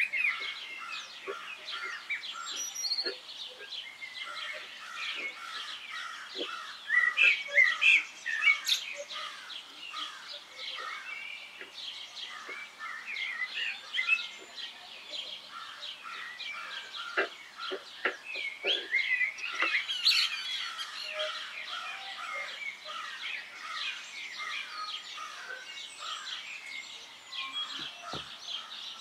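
A chorus of many small birds chirping continuously, a dense mix of short, overlapping calls.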